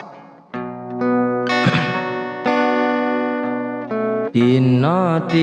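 Guitar music: plucked chords and notes that ring and slowly fade. A singing voice with wavering pitch comes in near the end.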